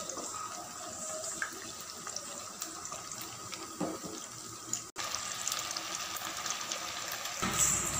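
Bread-and-aval vadais deep-frying in hot oil in a kadai: a steady sizzle of bubbling oil, broken by a brief drop about five seconds in.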